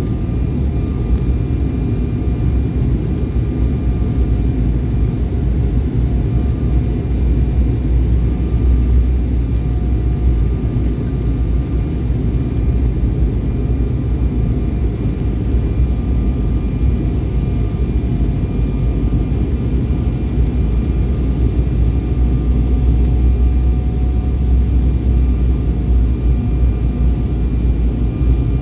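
Cabin noise inside an Embraer 190 jet airliner on approach: a steady low rumble of airflow and its CF34 turbofan engines, with faint steady whining tones above it.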